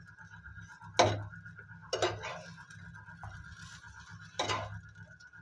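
Metal spatula knocking and scraping on a non-stick pan as butter-toasted pav bread slices are pressed and turned. There are three sharp knocks, the last after a longer gap, over a faint steady hum.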